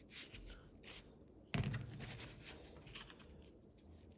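Light metal clicks and a single clunk about one and a half seconds in, from an old ratchet's greased drive head being pushed back into its housing.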